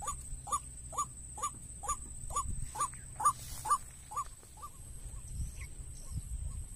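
White-breasted waterhen (ruak-ruak) calling: a rapid string of short rising notes, just over two a second, that dies down to faint notes after about four and a half seconds.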